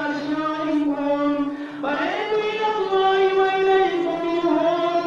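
Chanted Muharram lament (nauha) in a mournful melody with long held notes. The phrase breaks off briefly just before two seconds in, and a new, higher-starting line begins.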